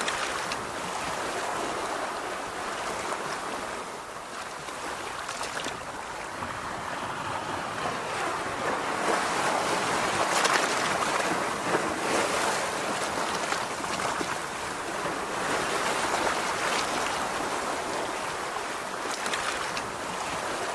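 Calm ocean waves washing onto a beach, a steady surf hiss that swells and eases as the waves break and run out, a little louder around the middle of the stretch.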